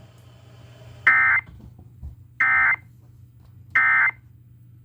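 Emergency Alert System SAME end-of-message data signal: three short bursts of digital data tones, about a second and a half apart, marking the end of the severe thunderstorm warning broadcast.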